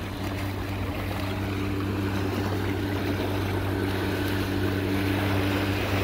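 Motorboat engine running steadily as the boat passes, slowly getting louder, with water lapping against the rocks.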